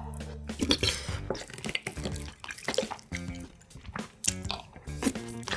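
Close-miked eating sounds: wet chewing and slurping, with many sharp clicks of chopsticks and spoon against dishes.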